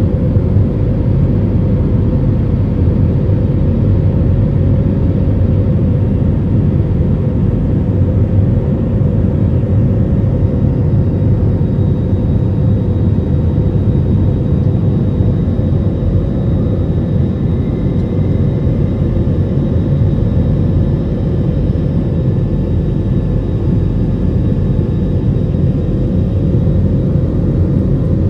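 Steady cabin noise of a jet airliner climbing after takeoff: an even rumble of engines and rushing air heard from a window seat over the wing, with a steady hum running through it.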